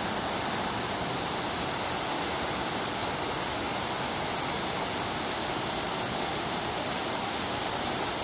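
Rushing water of river rapids and small waterfalls pouring over rock ledges: a steady, even rush of white water.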